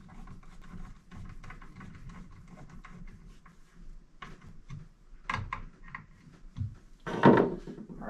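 Hand work on the replacement power switch in a Gendex 770 X-ray control box: faint scraping and small plastic and metal clicks and knocks as its screws are driven back in and the switch is seated. A short louder burst comes near the end.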